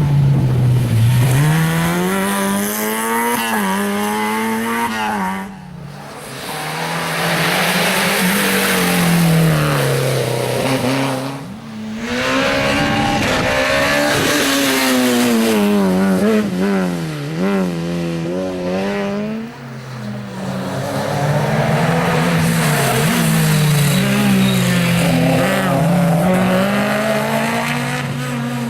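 Rally cars driven hard, one after another, engines revving high and dropping back with each gear change and lift of the throttle, with some tyre squeal. The sound breaks off sharply a few times between passes.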